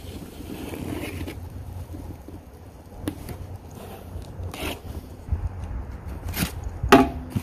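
Cardboard box being opened by hand: scraping and rustling of cardboard and packing tape being slit and pulled, with several short sharp scrapes in the second half.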